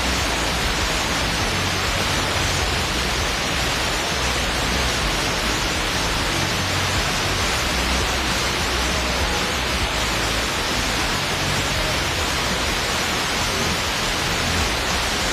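Steady hiss and static from an FM receiver tuned to 87.9 MHz, where a weak long-distance station sits barely above the noise floor. Faint traces of the station's programme break through the hiss at times.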